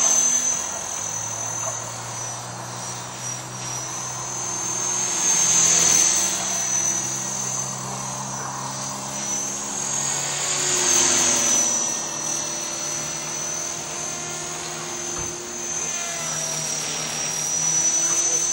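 450-size radio-controlled model helicopter in flight: a high whine from its motor and rotor that rises and falls in pitch, growing louder several times as it comes closer.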